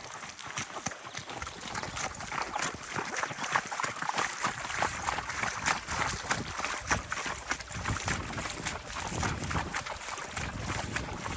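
Water wheel turning, its paddles splashing and water spattering in a dense, steady patter. Wind rumbles on the microphone near the end.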